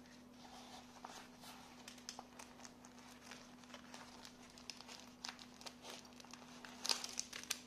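Small plastic packaging crinkling and small parts clicking as knife accessories are handled, with a louder flurry of rustles and clicks near the end.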